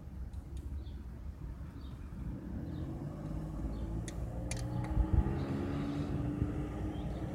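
A motor vehicle's engine running close by, growing louder and slowly rising in pitch from about three seconds in, with a few sharp clicks and a thump about halfway through.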